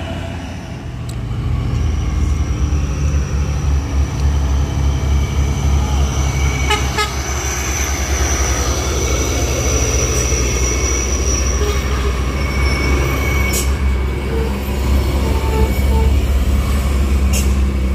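Heavy diesel truck engine running hard under load, growing louder about two seconds in, with a steady high-pitched whine over the deep engine note.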